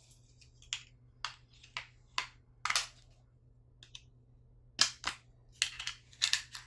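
About a dozen sharp, irregularly spaced plastic clicks and taps from handling a Roku TV replacement remote, the kind made by fitting AAA batteries and snapping the case or pressing its buttons.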